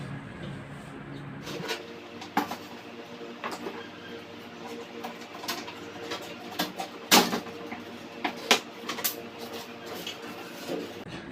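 Irregular clicks and knocks over a steady hum, the sharpest knock about seven seconds in.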